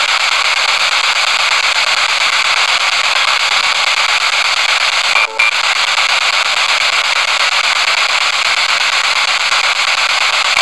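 Steady hiss of radio static from a P-SB7 spirit box scanning through stations, played through an external speaker, with a brief break in the noise about five seconds in.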